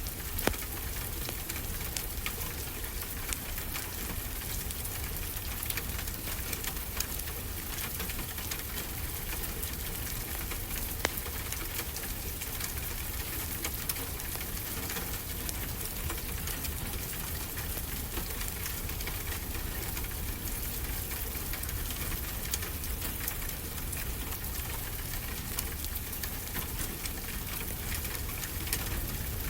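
Steady rain hissing with a wood fire crackling, scattered sharp pops over the even rush.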